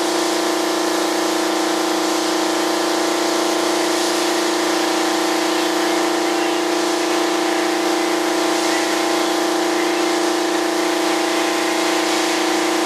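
Spray gun spraying primer, a steady hiss of air over the even hum of the motor that feeds it air, running without a break.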